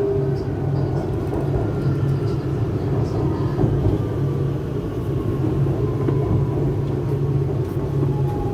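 Shanghai Metro type 09A02 electric train running, heard from inside the car: a steady rumble with a low hum. Thin motor whines fall slowly in pitch, a sign that the train is slowing.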